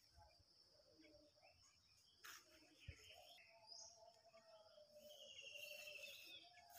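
Near silence: faint rural outdoor ambience with scattered distant bird calls, including a rapid trill about four and a half seconds in, over a steady high insect buzz.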